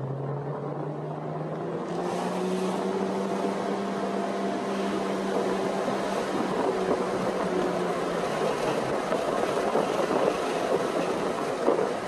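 Car driving away from an intersection, heard from inside the cabin: the engine note rises as it picks up speed, then holds steady while tyre and road noise builds up and takes over.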